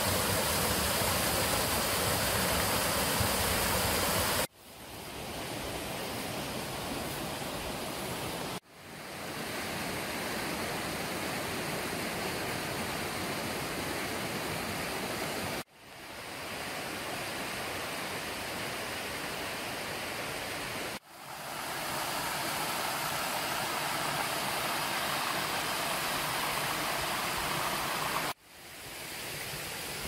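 Rocky mountain stream rushing over boulders and small cascades: a steady rush of water, dipping briefly and swelling back at five cuts.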